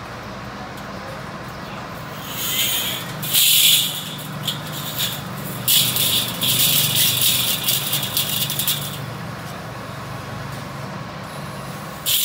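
Steel bandsaw blade rattling and clattering as it is twisted and folded into coils by hand, in two bouts about two and six seconds in.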